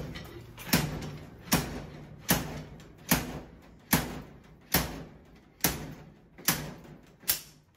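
Slide hammer (dent puller) screwed into a vending machine's door lock, its sliding weight slammed back against the end stop nine times, about one blow every 0.8 s. Each blow is a sharp metallic clank with a brief ring, jerking the lock cylinder out of the door.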